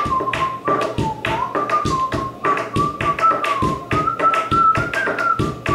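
Hands drumming a rhythmic beat on a wooden tabletop in bench-daruvu style, about four knocks a second. A thin, high melody wavers along over the beat.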